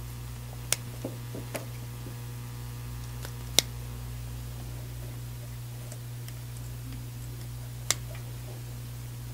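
Servo motor cable connectors snapping together: three sharp plastic clicks, the loudest a little past the middle, with a few fainter clicks between, over a steady low hum.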